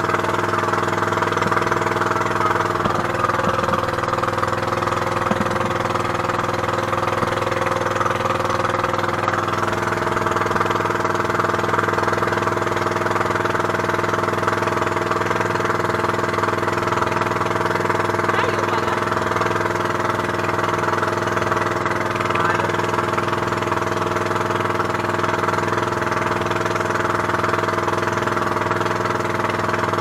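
Inboard engine of a motorized outrigger boat (bangka) running steadily under way, an even, unchanging note with the hiss of water and wind over it.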